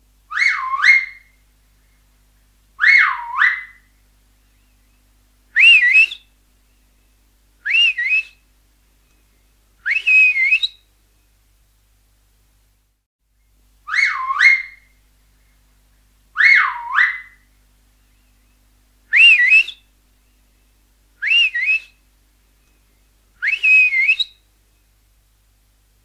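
Finger whistles in two matching runs of five, a couple of seconds apart. Each run opens with two swooping whistles that dip and climb back up, then three shorter, higher whistles that rise to a wavering top.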